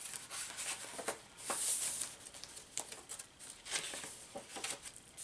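A handmade paper journal being handled: a string of short paper rustles and crinkles as pages and inserts are moved and turned. The loudest is a crisp rustle about one and a half seconds in.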